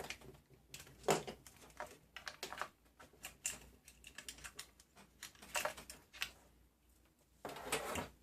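Irregular small plastic clicks and rustles, a longer cluster near the end: servo, ESC and fan connector plugs being pulled out of an RC car's receiver and the wires handled.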